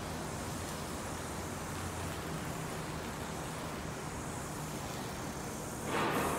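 Steady urban background hum from the surrounding high-rise estate, with a brief louder rush of noise near the end.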